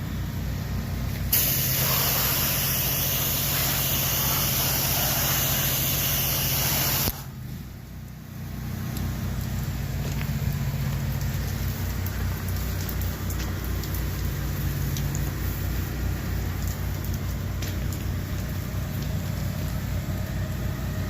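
Pressure washer engine running steadily, with a loud hiss of spraying water from about a second in that cuts off suddenly about seven seconds in.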